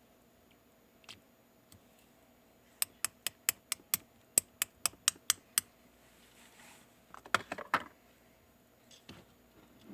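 Sharp clicks: a quick, even run of about a dozen at roughly five a second, then a short jumbled cluster of clicks with a soft rustle about seven seconds in.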